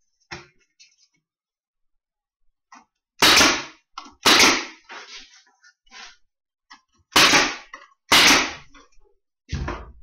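Nails being driven into the wooden hive box: five loud, sharp bangs, in two pairs about a second apart and then a fifth, with lighter knocks of handling between them.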